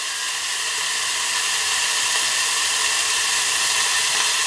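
Bacon sizzling inside a closed Tefal OptiGrill Elite contact grill: a steady hiss that grows slightly louder.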